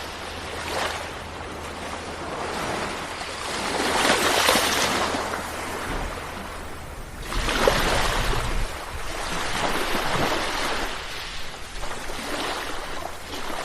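Sea waves breaking and washing on the shore as a steady surf hiss, swelling loudest about four seconds in and again near the middle.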